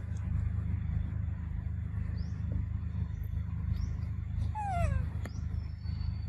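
A macaque gives one short call that slides down in pitch, about four and a half seconds in, over a steady low rumble. Small birds chirp faintly a few times.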